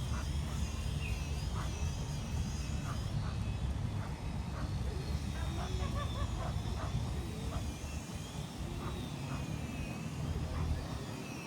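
Outdoor park ambience: a steady low rumble of distant city traffic, with small birds chirping and a wavering high-pitched song over it.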